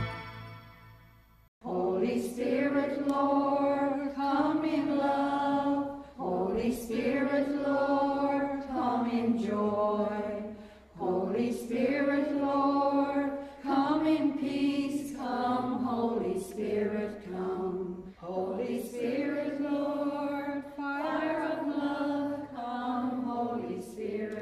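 A held brass chord fades out in the first second and a half. Then unaccompanied vocal chant begins, sung in phrases a few seconds long with short breaks between them.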